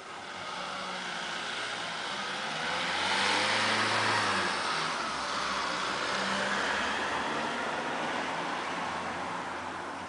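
A car driving past. Its engine and tyre noise swell to a peak about four seconds in and then fade away.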